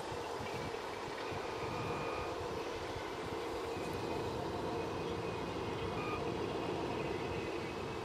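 A steady mechanical hum, with faint high whining tones that come and go.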